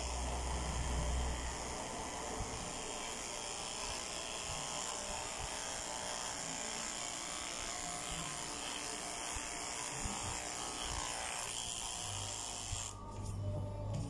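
Electric dog grooming clippers running steadily while trimming a dog's long front fur, switched off about a second before the end.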